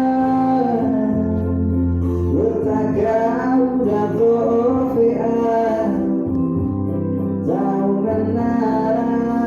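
A voice singing a slow song with held notes over guitar accompaniment.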